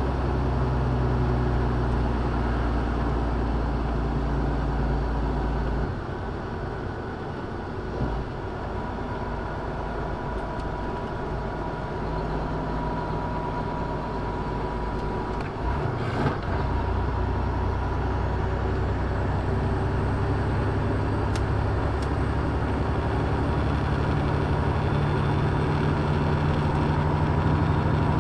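Semi-truck diesel engine running with road noise, heard from inside the cab while driving at about 30 to 40 mph. The low engine drone drops about six seconds in and builds again in the second half, with a couple of brief knocks.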